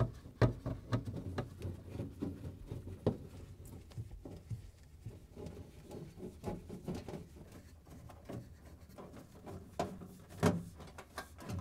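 Hand Phillips screwdriver driving screws into a refrigerator freezer's metal back panel: light, irregular clicking and scraping as the screws turn, with a few sharper knocks.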